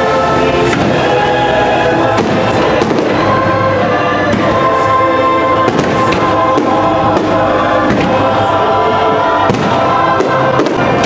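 Fireworks going off with several sharp bangs over loud show music with a choir singing.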